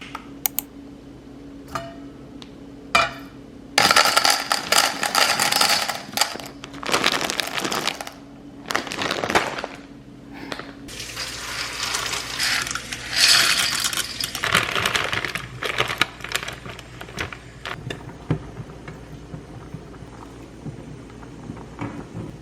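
Clinking and clattering of dishes and utensils in several bursts of a second or two, with sharp clicks early on. A steady low hum runs underneath and stops about eleven seconds in.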